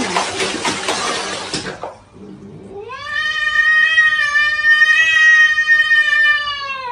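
A cat's long, drawn-out yowl of about four seconds, steady in pitch and dropping at the end, preceded by a short stretch of rough noise.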